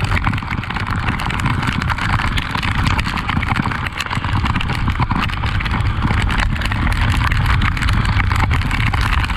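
Honda XRE 300 single-cylinder motorcycle running on the move, under steady rain and wind noise on the microphone.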